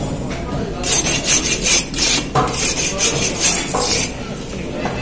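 A large curved fish-cutting knife being sharpened: quick scraping strokes of metal against a sharpener along the blade, a rapid run of about a dozen strokes that starts about a second in and stops just before four seconds in.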